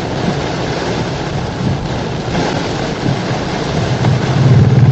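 Road noise inside an SUV cabin driving through heavy rain: a steady wash of rain, tyre and wind noise, with a low rumble swelling to its loudest near the end.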